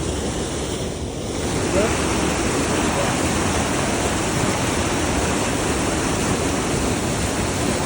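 Steady rush of water flowing through a dam, a loud even noise that dips briefly about a second in.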